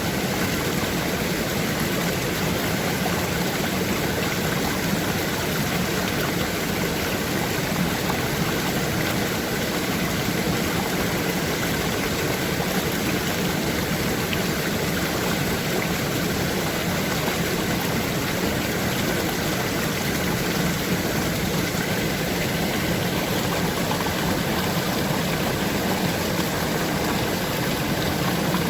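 A stream's running water flowing steadily, an even unbroken noise with no changes.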